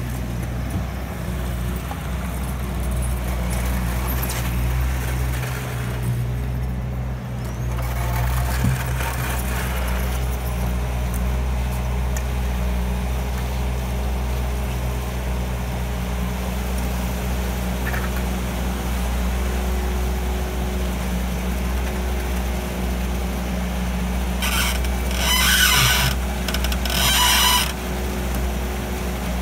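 Bobcat compact track loader's diesel engine running steadily. Near the end, two loud bursts of hissing as its raised bucket tips to dump wet concrete.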